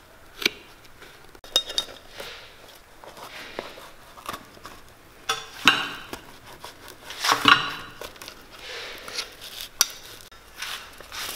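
Knife blade cutting and prying between a leather boot sole and its upper, giving irregular scrapes and sharp clicks as it breaks through hard, crispy old glue, which the cobbler takes for probably super glue.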